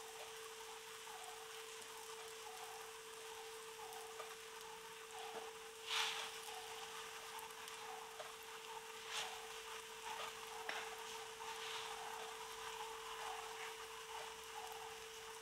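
Crumpet batter frying in hot sunflower oil in a frying pan: a faint steady sizzle with small pops and crackles, and a louder spit of crackling about six seconds in.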